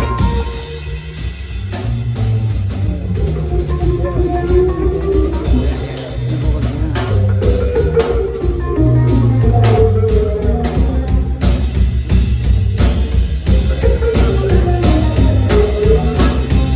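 A live band playing rock music with guitar, bass and drum kit, keeping a steady beat, while a lead melody slides up and down over it.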